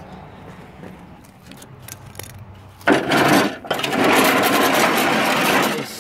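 A metal riding-mower deck dragged across an asphalt driveway, scraping loudly. The scraping starts suddenly about three seconds in, stops briefly, then runs on for about two seconds after a few quiet seconds of faint clicks.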